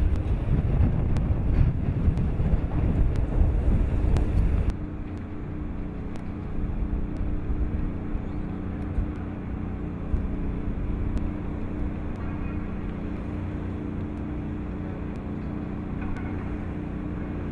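Boat under way, with wind buffeting the microphone and rushing water over a low rumble. After an abrupt cut about five seconds in, it changes to a steadier engine drone with a constant hum.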